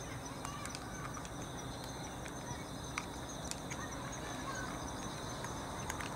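Steady high-pitched chirring of crickets or other autumn insects, with a few sharp clicks over it.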